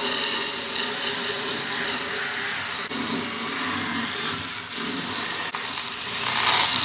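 Corded DeWalt drill spinning a homemade string brush wheel against a torched wooden carving, the bristles scrubbing the black char off the burnt wood. A steady motor hum runs under a loud brushing hiss that dips briefly a few times and gets louder near the end.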